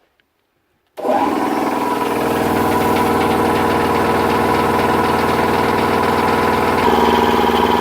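Old workshop air compressor starting abruptly about a second in and running steadily, building pressure in its tank; its tone shifts slightly near the end.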